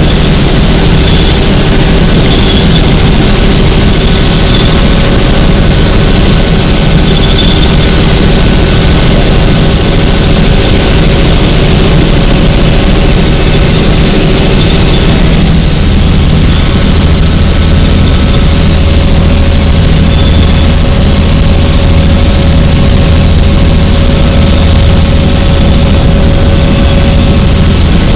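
Helicopter in flight: a loud, steady engine and rotor drone with a constant whine above it. The low drone grows a little stronger about halfway through.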